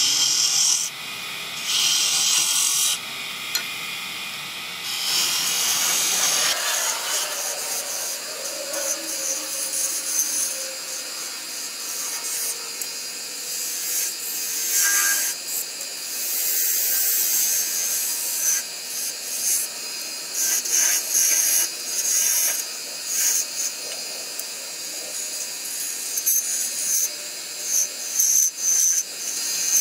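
Wood spinning on a lathe being cut by a hand-held turning tool: a scraping hiss of the tool edge on the wood that swells in short bursts as the cut is taken, then eases.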